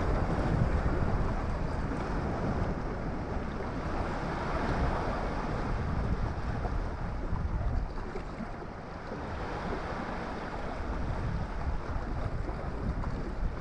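Wind buffeting the microphone in gusts, a low rumbling noise that eases for a moment about eight seconds in.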